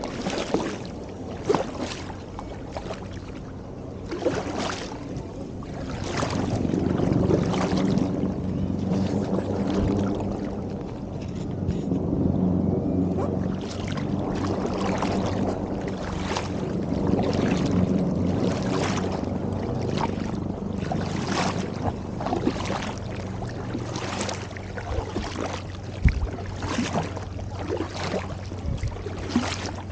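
Double-bladed kayak paddle dipping into lake water on alternating sides of an inflatable kayak, a regular splash about once a second, with water washing along the hull and a steady low hum underneath.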